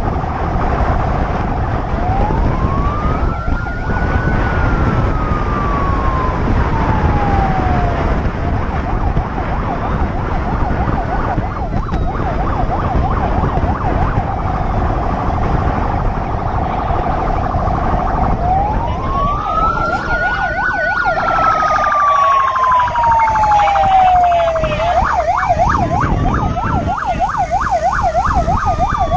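Police motorcycle siren: long wails that rise quickly and slide slowly back down, twice, alternating with a fast warbling yelp, over steady wind rush from riding at speed.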